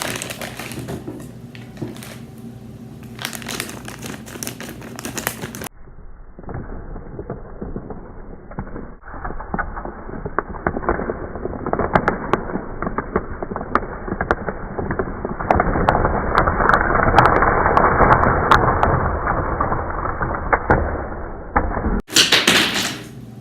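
Crinkling and crackling of Starburst candy wrappers being handled and unwrapped, with many small clicks. The sound turns duller about six seconds in, grows louder in the second half, and turns clear again near the end.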